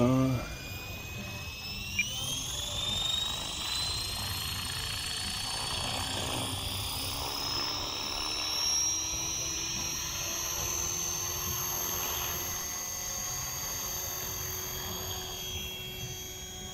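Electric Align T-Rex 450 SE V2 RC helicopter spooling up on the ground: its high motor and rotor whine rises in pitch over the first few seconds as the head comes up to speed, then holds steady. A single click about two seconds in.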